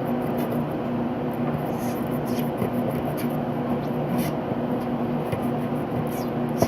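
Knife scraping and sawing continuously at a hard coconut shell.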